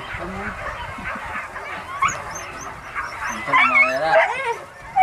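Hunting dogs yelping in short, high-pitched cries that bend up and down. The yelps grow louder and come thickest between about three and a half and four and a half seconds in.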